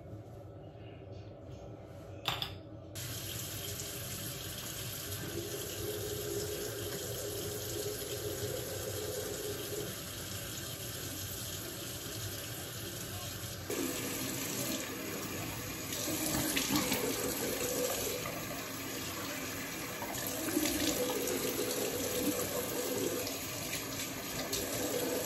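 Bathroom sink tap running, water splashing into the basin and over hands being rinsed. A short click comes just before the water starts, and the flow gets louder about halfway through.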